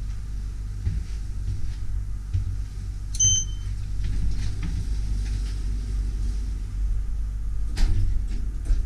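Passenger lift in motion, giving a steady low rumble. A short electronic beep sounds about three seconds in, and a brief knock comes near the end.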